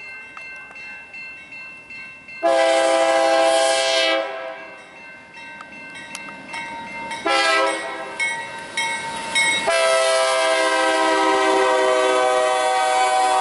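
Nathan K3LA five-chime air horn on a BNSF Dash 9 locomotive sounding a series of loud chord blasts. There is one blast about two seconds in, then a choppy run of shorter blasts, then a long held blast starting about ten seconds in. Between blasts the passing coal train's rail noise can be heard.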